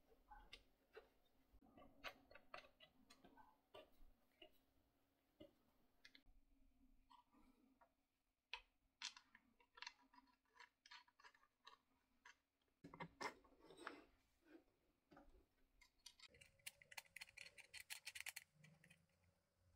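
Faint handling sounds of a small wooden tripod being assembled: light knocks of the wooden parts and clicks of metal bolts and wing nuts. Near the end comes a quick run of fine ticks.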